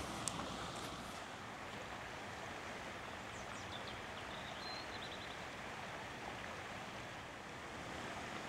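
Steady outdoor ambience: an even hiss of wind and background noise, with a few faint high chirps from small birds about halfway through.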